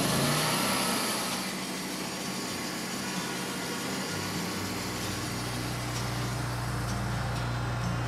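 Fuel-injected gasoline engine of a Wood-Mizer LT40 portable sawmill running at idle. About halfway through, a deeper, steadier hum comes in and the low end grows louder as the machine takes on load.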